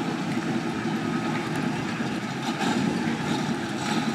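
Twin-turbo 427 small-block Chevy V8 in a 1929 Ford Model A pickup running at low revs as the truck creeps forward, a steady engine sound that swells slightly about two and a half seconds in and again near the end.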